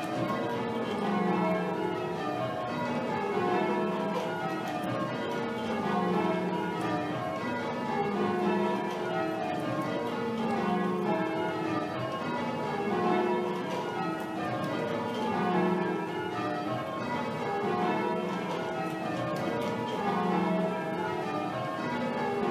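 A ring of church bells rung full circle in change ringing. Each row of strikes steps down from the highest bell to the lowest and repeats about every two and a half seconds in an even rhythm.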